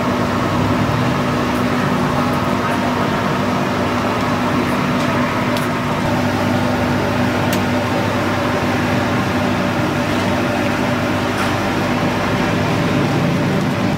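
Steady mechanical hum with a constant low tone under an even hiss, and a few faint clicks.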